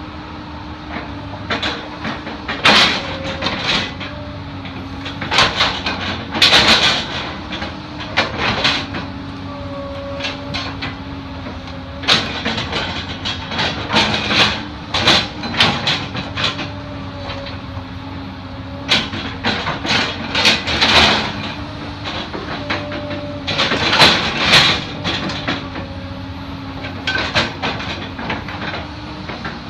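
A compact tracked excavator's engine runs steadily, with a hydraulic whine that comes and goes as the arm works. Over it come repeated scraping and crunching passes, each a second or two long, as the toothed bucket digs into the soil.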